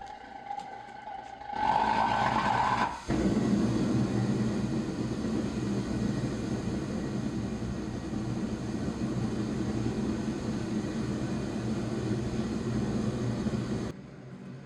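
A forge running steadily, heating a steel puck, with a hum under a haze of noise. It starts about three seconds in, after a brief higher-pitched tone, and cuts off near the end.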